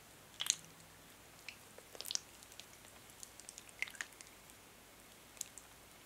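Hands rubbing thick white hand lotion together: wet, sticky squelches and crackly clicks coming irregularly, the strongest about half a second in and around two seconds.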